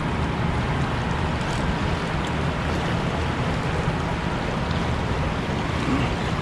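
Steady rush of fast, turbulent river water in the tailwater below a dam.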